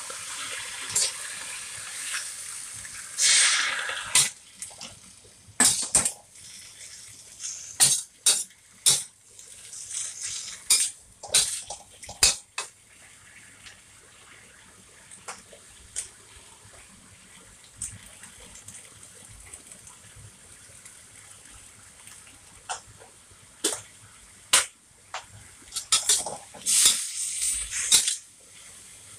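Water pouring from a kettle into a hot stainless steel wok of greens for the first few seconds, loudest at about three to four seconds in. Then a metal spatula clanks and scrapes against the wok as the greens are tossed, in bursts with a quieter stretch in the middle.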